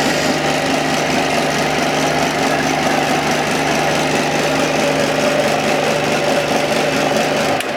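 Homemade metal-turning lathe running steadily while turning a part, the cutter fed by hand. Near the end the machine is switched off and runs down.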